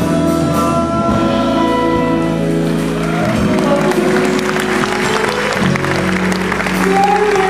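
Live band with a female singer holding sustained notes, then audience applause breaking out about three seconds in while the band keeps playing underneath.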